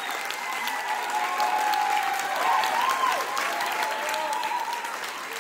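Audience applauding, with voices calling out over the clapping; the applause fades out near the end.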